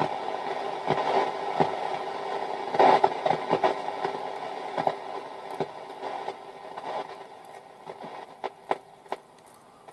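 Roberts Rambler transistor radio's speaker giving out hiss with scattered crackles as the tuning knob is turned across the long-wave band, with no station coming in: the set is deaf on long wave. The hiss fades away over the last few seconds.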